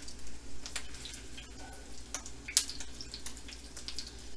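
Egg rolls frying in hot oil in a skillet: a steady sizzle with irregular crackles and pops of spattering oil, the sharpest pop about two and a half seconds in.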